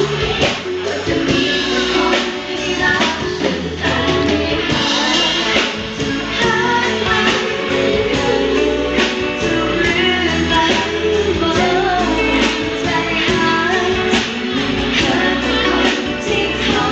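Live pop band playing loudly, with two women singing lead vocals into microphones over bass guitar, electronic keyboard and a steady drum beat.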